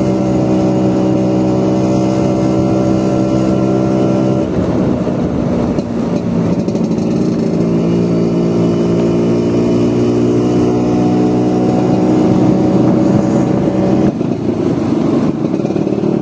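Vespa scooter engine running under way: it holds a steady note, breaks off roughly about four seconds in, then climbs slowly in pitch as it picks up speed, with a step in the note near the end.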